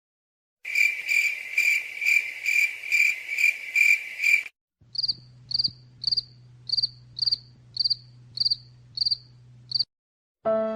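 Two clips of rhythmic cricket-like chirping. First a lower, fuller chirp repeats about twice a second for about four seconds. Then, after a brief gap, a higher, thinner chirp repeats about twice a second over a faint low hum.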